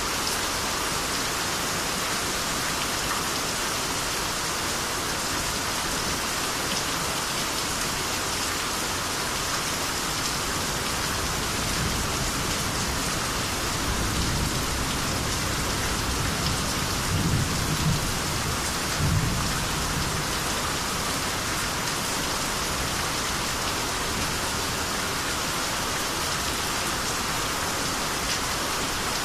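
Steady rainy-season downpour with rolling thunder. The rumble builds from about twelve seconds in, is loudest at around seventeen to nineteen seconds, then dies away under the steady rain.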